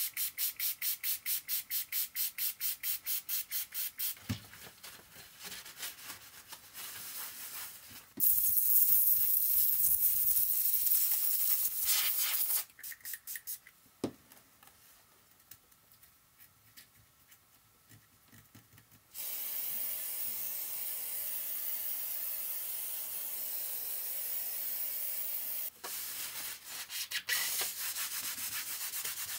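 A tissue scrubbed back and forth over a computer circuit board in fast, even strokes, about five a second. After that comes an aerosol electronics-cleaner spray hissing for about four seconds. Later a softer steady hiss runs for several seconds, and rubbing returns near the end.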